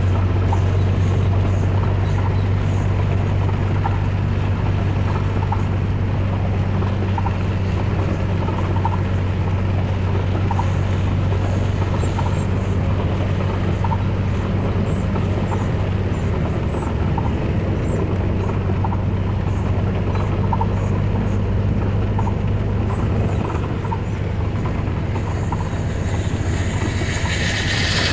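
Engine of a vehicle, plausibly a truck, droning steadily from inside the cab while driving in heavy rain, with rain and road noise. A faint tick comes about every second and a half, and a rush of hiss swells near the end.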